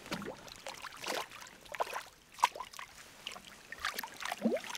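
A hooked perch thrashing and splashing at the water's surface as it is brought to hand, with irregular splashes and drips and one sharp tap about halfway through.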